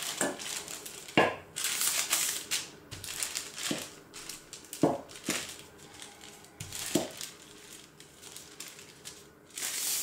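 Wooden rolling pin rolled back and forth over baking paper on a wooden table: the paper crinkles and rustles, with a few sharp knocks along the way.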